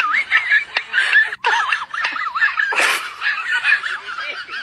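High-pitched laughing and giggling, wobbling rapidly in pitch, with a short noisy burst about three seconds in.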